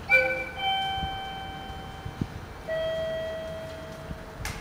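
Station public-address chime: two bell-like notes in quick succession, then a third about two seconds later, each ringing and slowly fading. A sharp click near the end.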